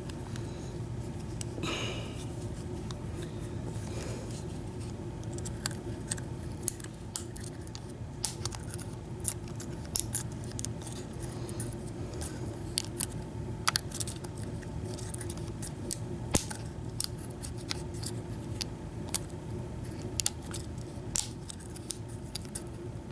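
Lock pick and tension wrench working inside a Master Lock No. 40 round padlock: many small, irregular metallic clicks and scrapes over a steady low hum. The loose core sounds gritty, as if there's sand or something in it.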